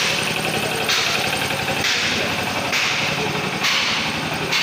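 Engine running steadily at idle, with a rhythmic swishing hiss repeating about once a second over it.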